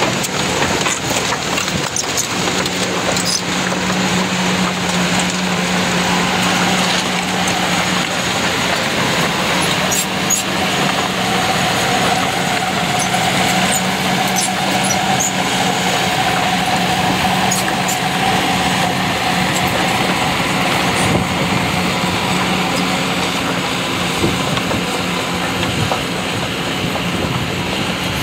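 Kobelco SK200 hydraulic excavator travelling on its crawler tracks: the diesel engine and hydraulics give a steady drone, with scattered metallic clanks from the tracks.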